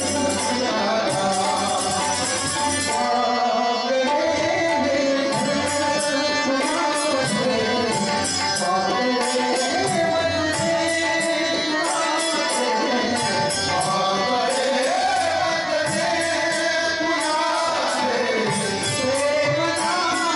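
Marathi bhajan performance: a male lead voice sings a devotional melody, accompanied by harmonium, with tabla and small brass hand cymbals keeping a steady, lively rhythm.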